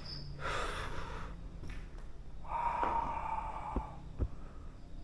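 A person breathing heavily: two long, noisy breaths, the second with a faint whistling tone, then two short soft knocks near the end.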